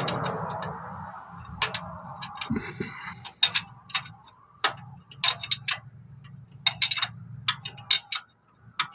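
Irregular metallic clicks and clinks of a wrench working on a new oil pressure sending unit as it is threaded in, some clicks ringing briefly, over a faint low hum.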